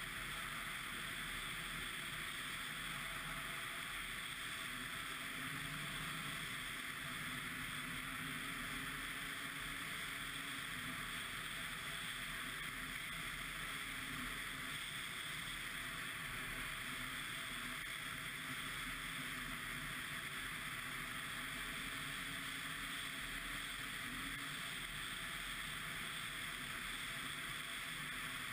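Ski-Doo MXZ 600 XRS snowmobile running at a steady speed: a constant engine and track drone that does not rise or fall.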